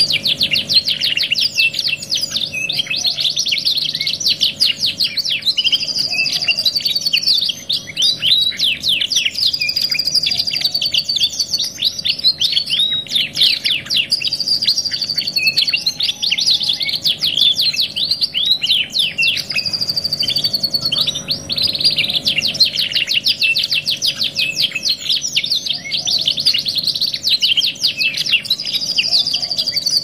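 Two domestic canaries' songs mixed together, singing without pause in fast rolling trills and rapid chirps, over a faint steady hum.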